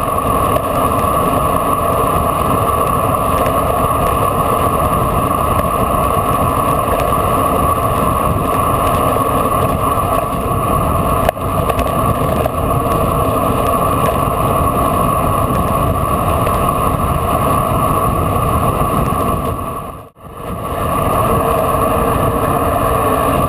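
Steady wind rush on the microphone of a camera riding on a bicycle descending a mountain road at speed, mixed with tyre noise on the asphalt. There is a single click about halfway. Near the end the sound drops out briefly, then returns.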